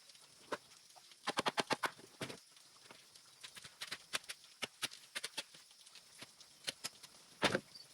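Irregular sharp knocks and taps: a quick run of about ten in the first couple of seconds, scattered single ones after, and a louder knock near the end, over a faint steady high hiss.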